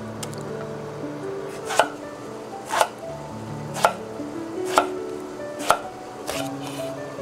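Chef's knife cutting through a long eggplant onto a wooden cutting board: five sharp chops about a second apart.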